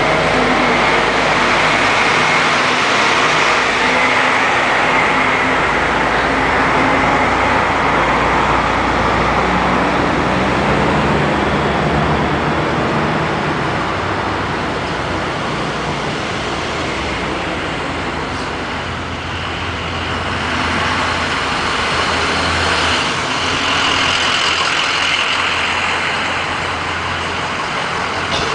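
Steady motor-vehicle sound: engine hum and road noise from moving traffic.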